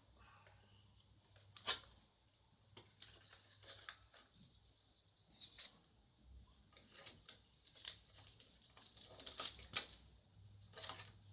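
Packaging being handled: scattered soft rustles and light taps of paper and cardboard as the box contents are sorted through, loudest around the middle and near the end.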